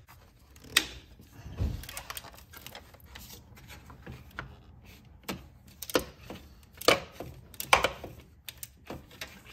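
Irregular metal clicks and clinks of a socket wrench working the 10 mm nut on a car alternator's power cable terminal, with a few sharper knocks, the loudest near the end.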